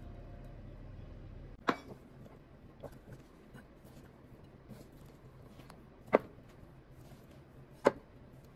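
Hands mixing sliced vegetables into gram flour in a bowl: soft rustling with three sharp knocks against the bowl, about two seconds in, six seconds in and near the end. A low hum stops under two seconds in.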